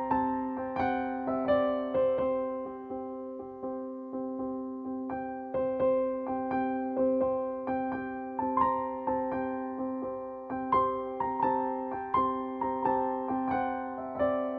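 Background music: a gentle piano or electric-piano melody of struck notes that ring and fade over a steady held chord.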